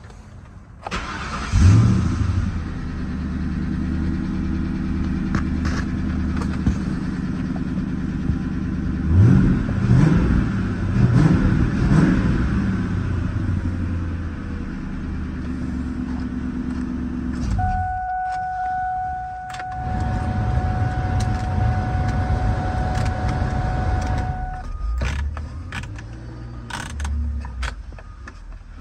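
A 2002 Ford Mustang's engine cranks and starts about a second in, then idles steadily, with a few blips of revving in the middle. Near the two-thirds mark the engine note stops and a steady tone holds for about seven seconds, followed by scattered clicks.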